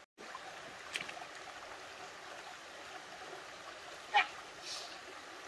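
Mountain stream running over rocks, a steady low rush of water. A small click comes about a second in, and a short, louder, sharp sound about four seconds in.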